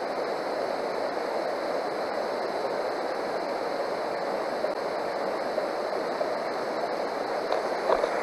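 Steady rushing of a river flowing over a cobble bed, with a few faint knocks near the end.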